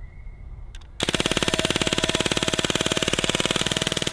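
CO2-powered MP40 replica BB gun firing on full auto: a rapid, even stream of shots starts about a second in and carries on without a break.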